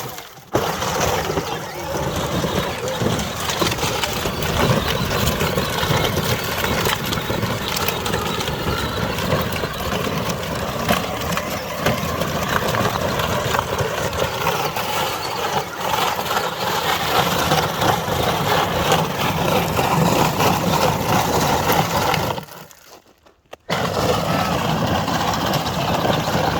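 PowerWheels Jeep Hurricane ride-on toy driving over rocky ground: the electric drive motors and plastic gearboxes whine while the hard plastic tyres crunch and clatter over stones. It goes quiet for about a second near the end, then carries on.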